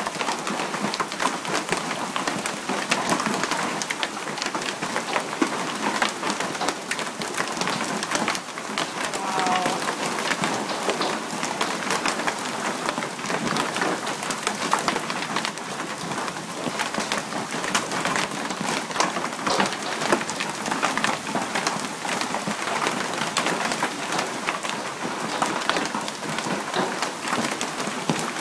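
Hailstorm: a dense, continuous patter of hailstones and rain striking surfaces, with many sharp individual hits.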